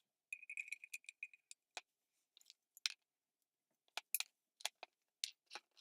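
A quick run of small clicks with a thin high ring under them, then a string of separate sharp clicks and ticks, like small metal parts or tools being handled.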